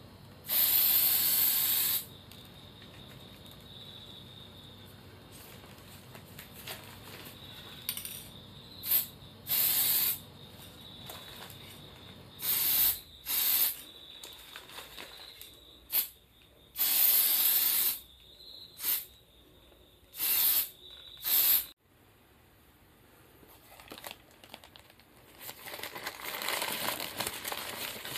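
Aerosol spray can hissing in about seven short bursts as black paint is sprayed onto a bowling shoe's midsole, with a few small clicks between. Near the end, newspaper crinkling as the paper-wrapped shoe is handled.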